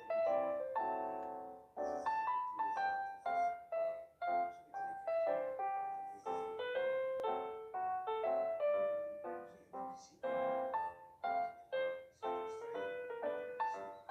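Background piano music: a melody of separate notes, each struck and then fading, several a second.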